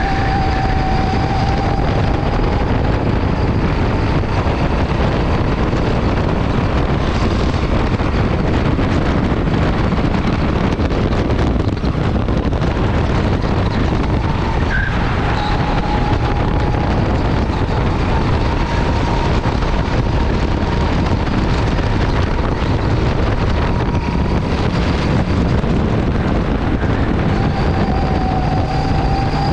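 Go-kart running flat out around a track, with a steady whine that dips and recovers in pitch a few times, under heavy wind noise on the microphone.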